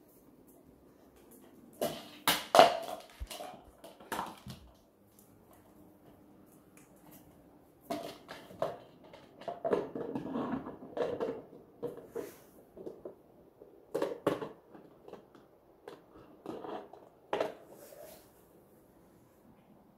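A German Shepherd puppy playing: irregular knocks, taps and scuffs. A loud cluster of knocks comes about two seconds in, and after a short lull there is a longer stretch of scuffling and knocks in the second half.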